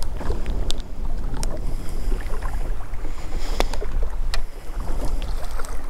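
Steady wind rumble on the microphone over small waves lapping against a fishing boat, with a few sharp clicks as gear in the boat is handled.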